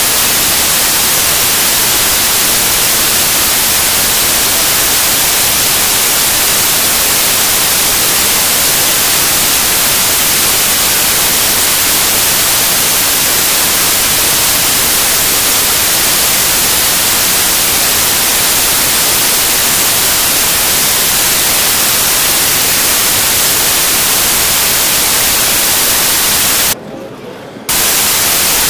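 Loud, steady hiss of static, like white noise, from a faulty recording, with a brief drop in level near the end.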